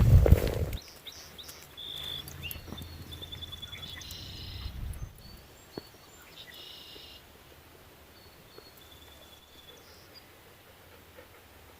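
Footsteps in the first second, then several songbirds calling in the morning meadow: a clear whistled note, a rapid trill and a few buzzy calls, spread through the rest of the stretch.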